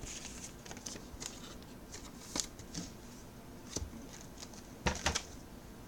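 Trading cards being handled and flipped through: faint rustling and sliding of card stock, with a few sharp clicks, the loudest two close together about five seconds in.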